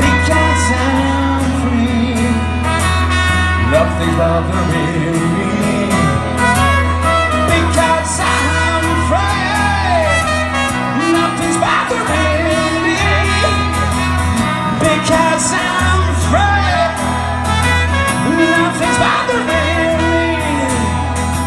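Live music over a PA: a trumpet playing the melody over strummed acoustic guitar.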